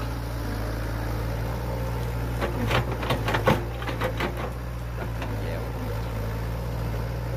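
Sumitomo S160 excavator's diesel engine running steadily under digging load, with a quick run of clanks and knocks from the bucket and linkage a little after two seconds in, lasting about two seconds, as the ditching bucket digs into and lifts wet mud.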